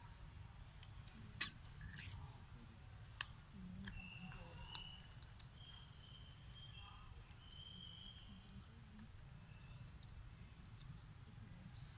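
Faint background with a low rumble and a few sharp clicks, the loudest about a second and a half and three seconds in. Faint thin high-pitched calls come in short pieces through the middle.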